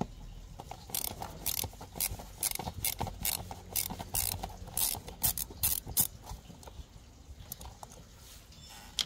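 Small hand ratchet with a T20 Torx bit clicking in quick irregular runs as it undoes a screw holding a mass airflow sensor. The clicking dies down after about six seconds, with one last click near the end.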